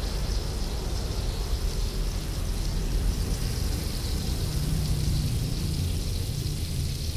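Gas burner flame under a large steel wok, a steady low rumble with a hiss, and a light sizzle from a lump of fat melting in the pan.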